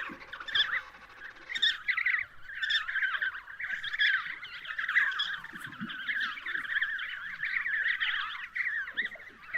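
Penguins calling, many at once: a steady chatter of overlapping high, wavering calls.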